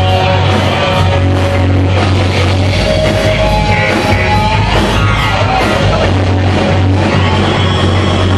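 Live rock band playing loudly, with a singer holding long notes over a heavy, steady bass.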